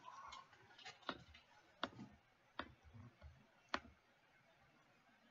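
A computer mouse clicking a few times: short sharp clicks, spaced irregularly about a second apart, over near silence.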